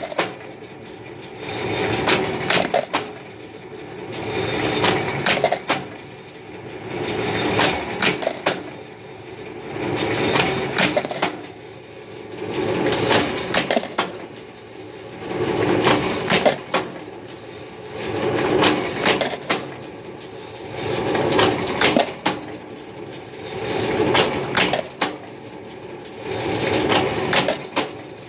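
Workshop machine running in a steady repeating cycle, about once every two and a half to three seconds. Each cycle is a swelling rush of mechanical noise that ends in a few sharp metallic clicks.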